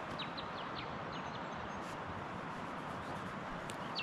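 Steady rush of a flowing river, with a bird giving a quick series of short, falling chirps in the first second or so and again near the end.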